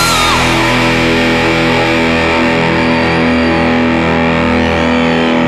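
Distorted electric guitar played through a Marshall 1959HW Super Lead valve head and 4x12 cabinet. A vibrato-bent note drops away at the start, then sustained, overdriven notes ring on over a moving lower line.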